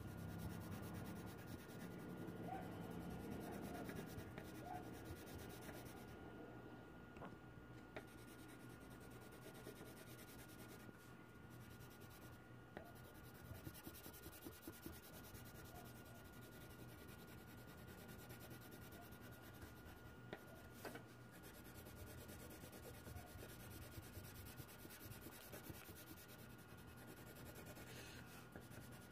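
Faint scratchy strokes of a blue colored pencil shading on paper.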